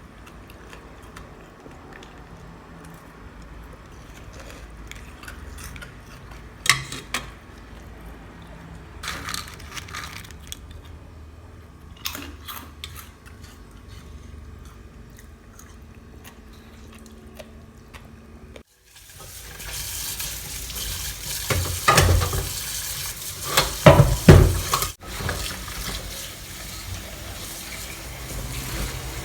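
Dishes and utensils clinking now and then, then, from about two-thirds in, water running with louder clattering of dishes and pans, as in washing up at a sink.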